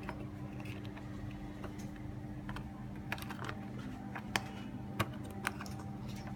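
Irregular small clicks and taps over a steady low hum, with a few louder sharp knocks a little past the middle.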